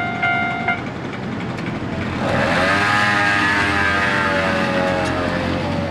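Japanese level-crossing warning bell clanging about twice a second, cutting off under a second in. Then a passing vehicle's whine that rises briefly and slowly falls.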